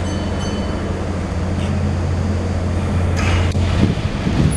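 A steady, loud, low mechanical drone with a deep hum from a large passing vehicle, with a brief high ping in the first second.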